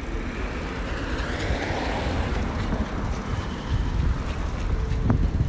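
Passing vehicle traffic, a steady low rumble that swells and fades in the middle. Near the end, wind buffets the microphone a couple of times.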